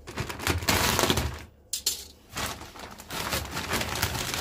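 Plastic sack of wood pellets being cut open with scissors and pulled open by hand: loud crinkling and rustling of the plastic, loudest in the first second and a half, with a short lull before the crinkling goes on.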